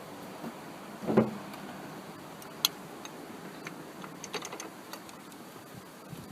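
Handling noises of hand tools and car parts: a knock about a second in, a sharp click a little later, then a few light clicks.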